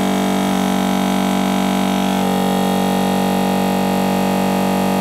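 Solis EasyVac Professional vacuum sealer's pump running steadily on its automatic cycle, drawing the air out of a bag. Its hum changes tone slightly about half a second and two seconds in.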